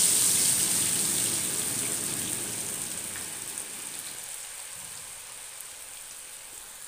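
Raw cornflour-and-spice-coated potato fries sizzling in hot ghee in a kadai just after being dropped in. The sizzle is loud at first and fades steadily as the first rush of moisture boils off.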